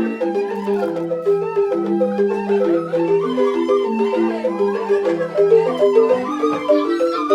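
Balinese rindik, bamboo xylophones struck with mallets, playing a fast, even stream of interlocking notes over a slower lower line.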